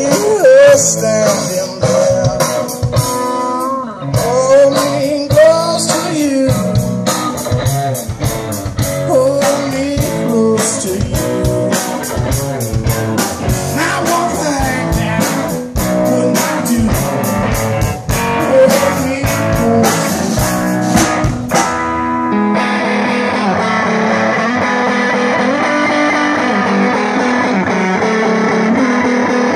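Live blues-rock band playing loud: an electric guitar plays bending lead lines over a drum kit. About 22 seconds in the sound changes abruptly: the drums drop out and electric guitar holds sustained notes.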